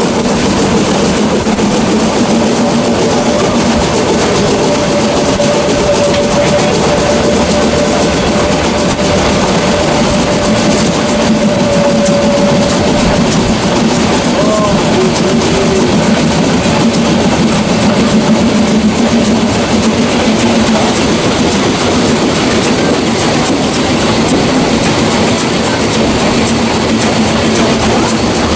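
Metre-gauge steam train hauled by a Harz Neubaulok 2-10-2 tank engine moving past. Steam hisses steadily and the coach wheels clatter over the rails.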